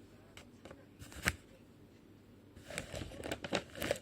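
A blind-bag package being handled: a single sharp click about a second in, then a run of crinkling and clicking near the end.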